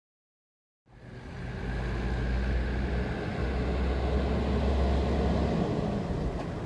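A low, steady engine-like drone with a rushing noise over it cuts in suddenly about a second in, after dead silence. It holds steady, then eases off a little near the end.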